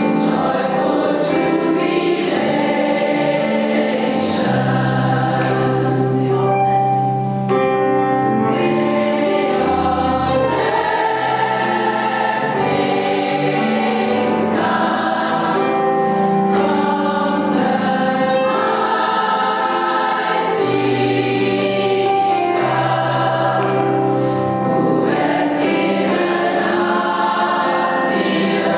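Gospel choir singing sustained chords with band accompaniment.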